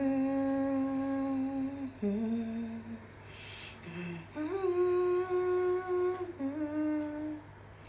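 A woman humming the slow melody of a gospel song in a few long held notes, stepping up and down in pitch, with a short breath midway.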